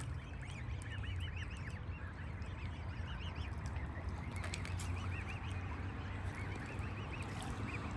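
A flock of birds calling: many short, high, overlapping chirps scattered throughout, over a steady low rumble.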